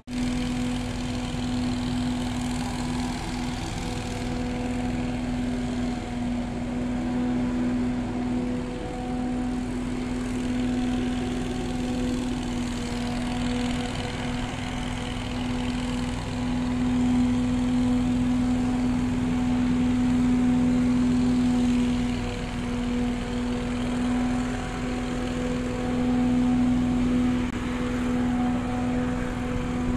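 An electric train's steady drone: a constant hum with overtones whose pitch never changes, over a low rumble, swelling slightly in the middle.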